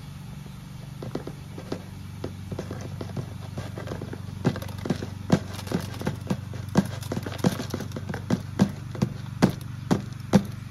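Small arsenopyrite crystals and rock bits tipped into a metal mesh strainer, clicking against it. The clicks come faster and louder toward the end, over a steady low hum.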